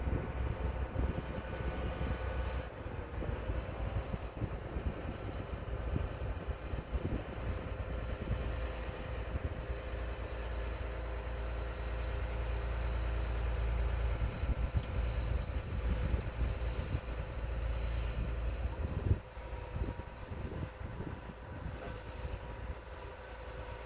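Excavator's diesel engine running steadily as the machine is driven up onto a low-bed trailer, with a faint high whine over the low rumble. The level drops about 19 seconds in as the engine eases off.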